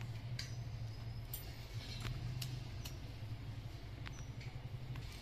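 Scattered light clicks and knocks of thin dry kindling sticks and a matchbox being handled, about half a dozen in all, over a steady low hum.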